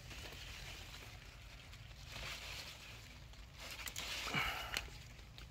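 Rustling and brushing of yardlong bean leaves and vines as they are handled during picking, louder in two stretches about two and four seconds in.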